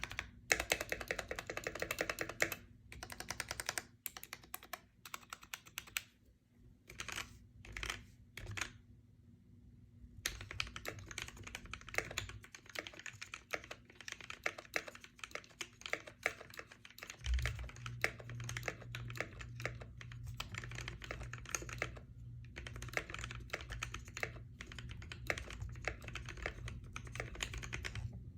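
Typing on a modified GamaKay K61 mechanical keyboard with lubed and filmed Gateron Yellow linear switches: fast runs of keystrokes with a few short pauses and one longer break about nine seconds in.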